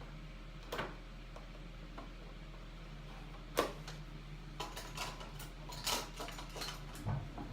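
Scattered light clicks and taps of packaging and small product bottles being handled on a table, with one sharper knock about three and a half seconds in and a run of quicker taps after it.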